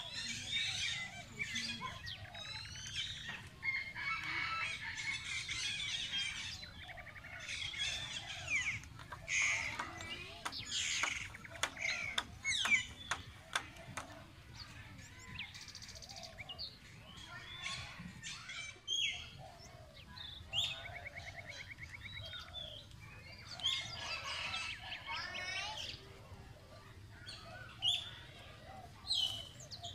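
A chorus of small birds chirping and trilling over one another: quick high calls and fast rattling trills that come and go throughout. A run of sharp clicks or taps sounds about a third of the way in.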